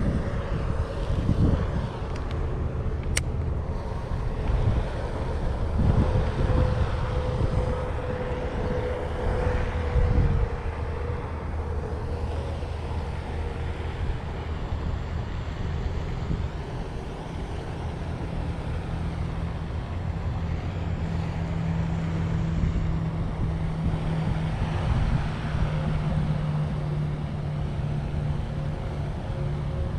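Wind buffeting the microphone in gusts over a steady low motor hum whose pitch shifts a little.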